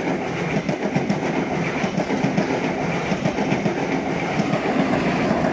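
XPT passenger train passing through the station, its carriages' wheels clattering over the rails in a dense, continuous run of clicks.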